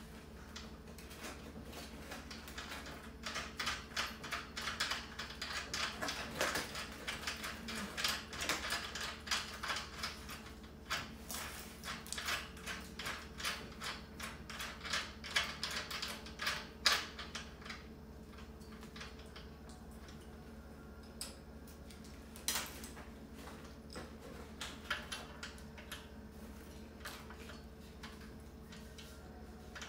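Small metal parts clicking and rattling against a metal cart frame as hardware is fitted by hand. There is a busy run of quick clicks for most of the first half, then only scattered clicks.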